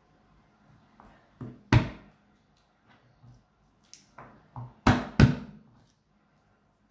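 Kitchen knife knocking on a plastic cutting board as garlic cloves are cut: a handful of sharp knocks, the loudest about two seconds in and a close pair of loud ones about five seconds in.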